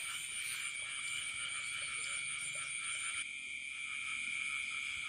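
Night chorus of frogs and insects: several steady high-pitched trills at once, with a fast pulsing chirp on top that stops about three seconds in.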